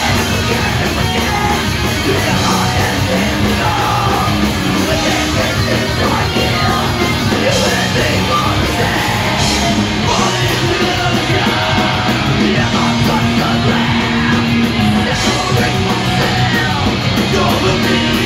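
Punk rock band playing live: electric guitars, bass guitar and a drum kit, with a yelled vocal over them, loud and steady.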